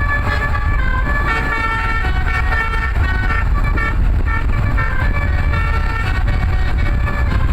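Roof-mounted Basuri telolet bus horn, its many trumpets playing a non-stop melody of quickly changing notes over a steady low rumble.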